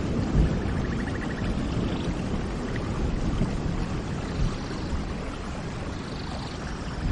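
Steady rain with a low rumble that slowly eases. Faint short bird calls sound above it, including a quick trill about a second in.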